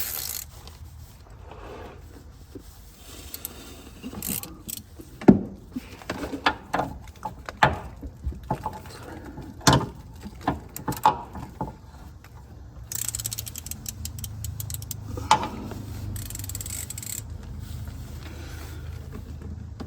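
Metal wrenches clinking, knocking and scraping against a rusted, seized line fitting under a motorhome, a run of sharp metal knocks from about four seconds in, then a steadier low noise with a few more clicks in the second half.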